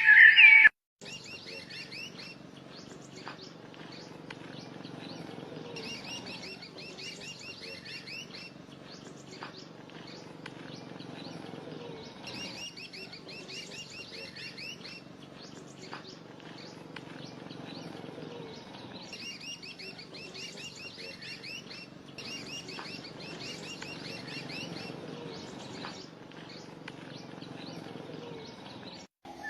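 Birds chirping: bursts of rapid, high chirps and trills recur every few seconds over a steady lower murmur. The first second is the tail of a loud music passage that cuts off abruptly.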